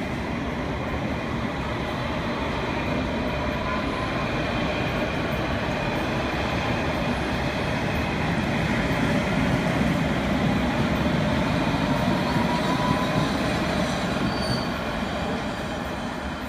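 London Underground S Stock train running along the platform and pulling away: a steady rumble of wheels on rail that builds for about ten seconds and then eases off as the train leaves, with a faint rising whine over it.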